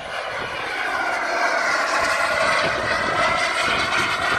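Turbine engine of a radio-controlled model jet running in flight: a steady, high whining rush that grows louder over the first second or so and then holds loud as the jet passes.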